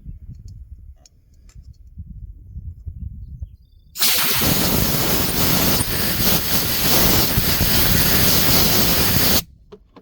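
Compressed air blown through a carburetor fuel passage: a loud, steady hiss that starts suddenly about four seconds in and cuts off after about five seconds. The air getting through shows the passage is clear.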